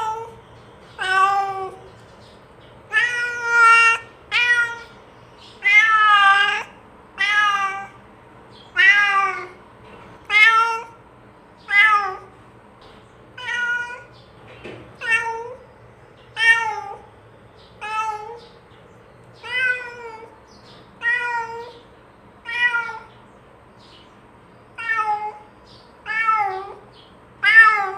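A domestic cat meowing over and over, about twenty calls at roughly one every second and a half, each rising and then falling in pitch, louder in the first half. The owner takes these calls as the cat calling another cat to come and eat together.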